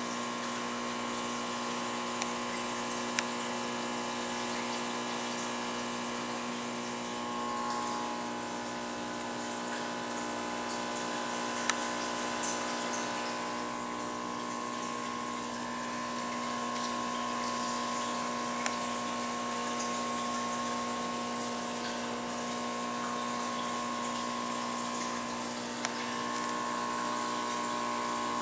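Aquarium pump humming steadily over the sound of running water, with a few sharp clicks.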